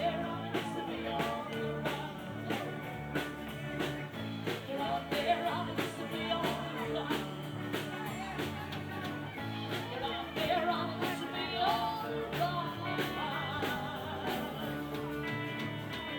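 Live band playing a song with a steady beat of about two strokes a second, sustained instrument notes and singing.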